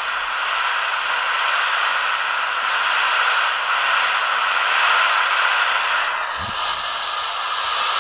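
Shortwave static from a web SDR receiver tuned near 7.6 MHz, played over computer speakers: a steady hiss, with a home-built 10 W transmitter's signal very weak and fading in and out beneath it.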